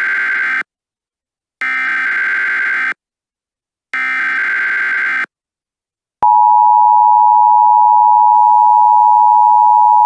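Emergency Alert System SAME header: three identical buzzing digital data bursts, each about a second and a half long, the first already under way at the start. About six seconds in they are followed by the EAS two-tone attention signal, a steady 853/960 Hz dual tone held to the end, which announces an alert message about to be read.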